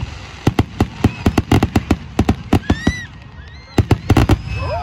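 Fireworks going off in a rapid, irregular string of sharp bangs and crackles. They ease off briefly about three seconds in, then come back as a tight cluster of loud bangs near the end.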